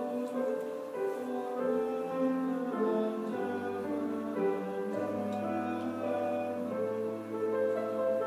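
Slow instrumental keyboard music: sustained chords over a held low bass note that changes every second or two.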